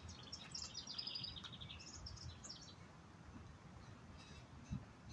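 Songbirds chirping in quick runs of short, high repeated notes, mostly in the first half, over a faint low background rumble. A single soft low thump near the end.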